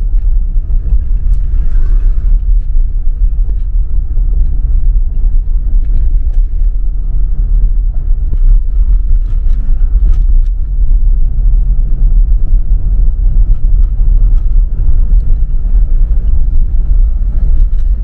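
Steady low rumble of a car driving along a road, with a few faint clicks now and then.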